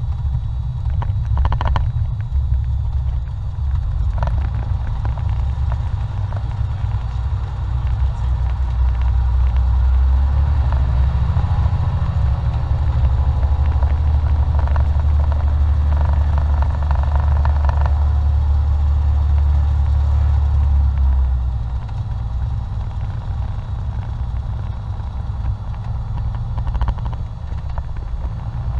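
Piston engine of a light single-engine airplane running at low taxi power, a steady low drone heard from inside the cockpit. It runs a little louder through the middle, then eases back for the last several seconds as the plane lines up on the runway.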